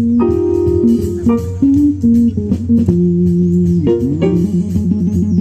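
Small jazz combo of violin, electric bass, piano and drums playing a swing blues: held melodic notes over a walking bass line, with steady cymbal strokes from the drums.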